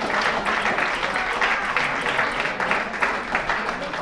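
Small audience applauding, many hands clapping at once, easing off slightly toward the end.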